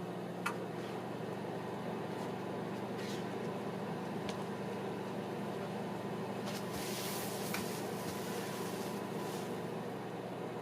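Microwave oven running with a steady electrical hum, with a few light clicks and a short burst of hiss a little past the middle.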